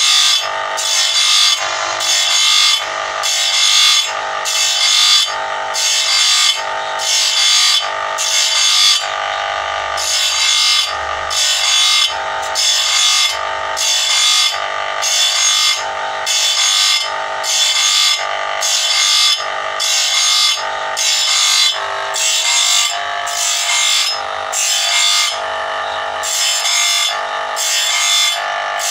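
Bench grinder's abrasive wheel grinding the teeth of a steel saw blade, tooth by tooth, in quick regular strokes about twice a second, over the steady running of the grinder's electric motor. This is a saw blade being sharpened.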